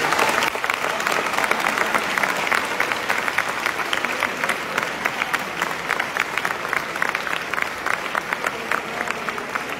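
A crowd of people applauding: many hands clapping in a dense, steady patter that thins slightly towards the end.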